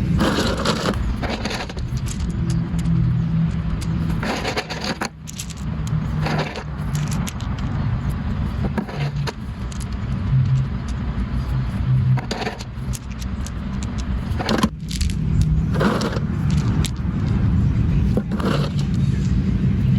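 A motor running steadily, broken several times by short bursts of scraping and clinking.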